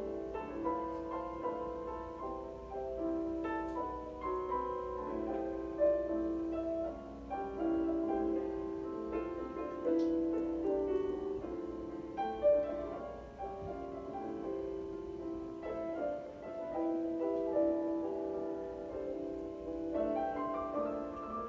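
Background instrumental music: a melody of held notes.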